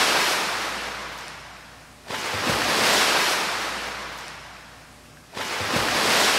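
Sea waves breaking, in three surges: each rushes in fast and then fades away over about three seconds, with a new one arriving about two seconds in and another near the end.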